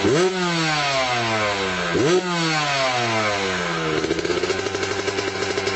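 Yamaha WR125's single-cylinder four-stroke engine revved twice with quick throttle blips, the revs sliding slowly back down after each, then settling to a steady idle about four seconds in.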